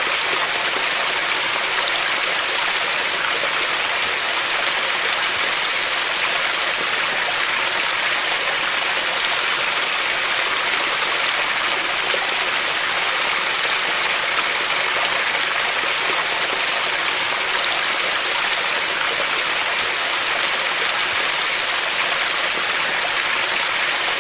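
Fast-flowing muddy river rushing past the bank: a steady, unbroken rush of water.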